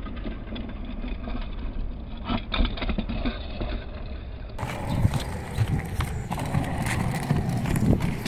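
Wind rumbling on the microphone, with light plastic knocks and clatter from a small LEGO Technic motorcycle model rolling across decking boards and tipping over onto its side.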